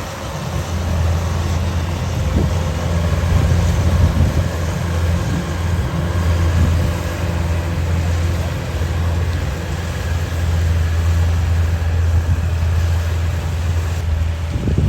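A 105X rice combine harvester's diesel engine running at a steady working speed, giving a loud, even low drone.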